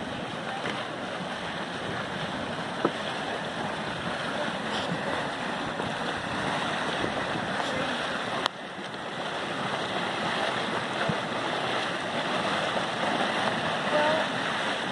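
Steaming mud pot venting, a steady rushing hiss of steam over churning hot mud. A short click comes about three seconds in and a sharper one about eight and a half seconds in.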